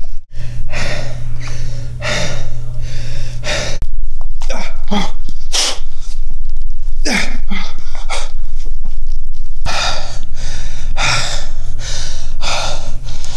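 A man breathing hard and fast, out of breath from exertion: sharp, noisy exhales and gasps about every half second, over a steady low hum.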